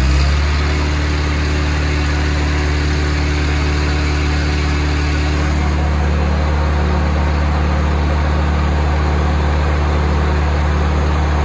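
John Deere 4045 four-cylinder diesel running steadily at high speed, about 2,200 rpm. It is a freshly rebuilt engine on a test run, which the mechanic fears was damaged at its first start.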